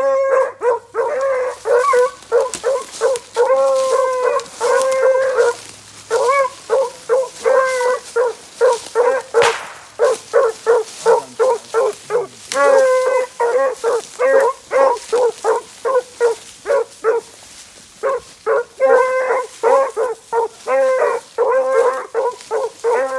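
Beagle hounds giving tongue as they run a scent line: a quick, unbroken string of short, pitched bays that starts suddenly and breaks off briefly near the end before picking up again.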